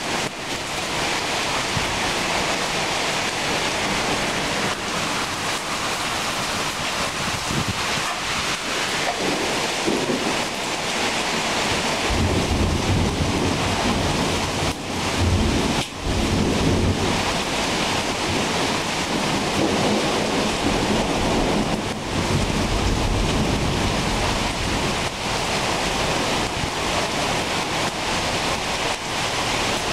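Heavy rain falling in a steady downpour, with wind gusting. A deeper low rumble rises about twelve seconds in and swells again later on.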